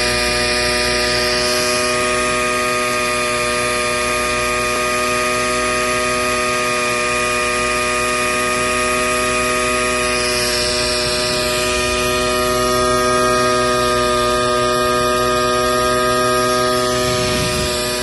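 Steady machinery hum at a constant pitch with many overtones, with a light hiss on top that swells briefly near the start and again about ten seconds in.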